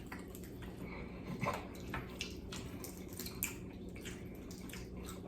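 Quiet eating sounds: scattered small clicks and smacks of chewing and picking at fried chicken feet.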